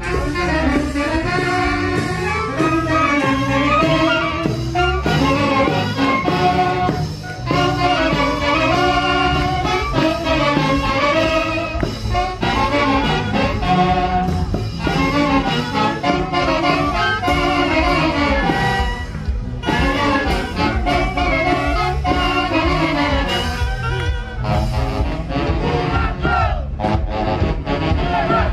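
Live Peruvian orquesta típica playing a huaylarsh: saxophones and trumpets carry the melody together over a steady driving beat.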